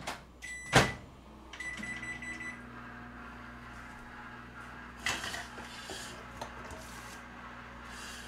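Microwave oven door shut with a knock, a few keypad beeps, then the microwave starting up and running with a steady hum. A short clatter of kitchenware comes about five seconds in.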